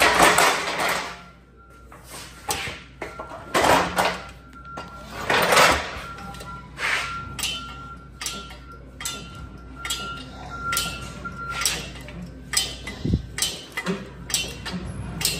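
Manual hand pallet jack being worked and rolled: repeated clanks and rattles of its steel handle and forks, with a few longer scrapes along the floor.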